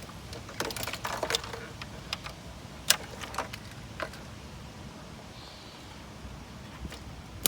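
Metal tools clinking and clicking against metal parts: irregular sharp clicks and clanks, busiest about a second in, then single clicks spaced a second or more apart.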